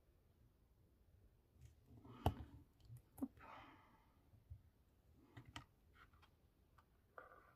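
Quiet handling noises of paper crafting: scattered small clicks and taps as a precision glue bottle and paper pieces are handled on a cutting mat, the sharpest about two seconds in, with a brief soft rustle of paper just after.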